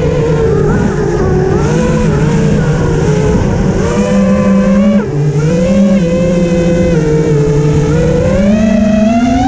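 A vehicle engine running steadily, its pitch wavering, dropping suddenly about five seconds in and then rising steadily near the end as it speeds up, over a continuous rushing noise.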